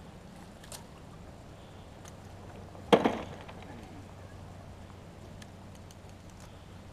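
A single sharp knock about three seconds in that rings briefly, over a faint steady low hum.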